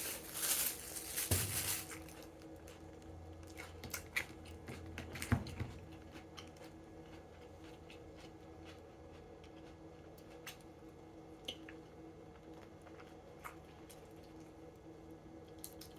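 A person eating chicken wings close to the microphone: a burst of handling noise in the first two seconds, then soft chewing with small scattered wet clicks.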